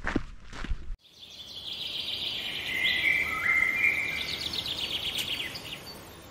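Footsteps crunching on a gravel track, about two a second, cut off abruptly about a second in. Then comes a channel logo sting of high chirps and trills like bird song, with a few held whistled notes stepping down in pitch in the middle, fading away near the end.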